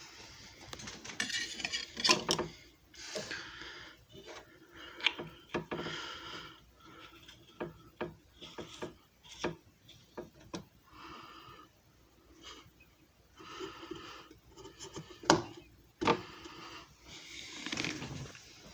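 Hard objects being handled: irregular clicks, knocks and short scraping rubs, with the loudest knocks about two seconds in and twice around fifteen to sixteen seconds in.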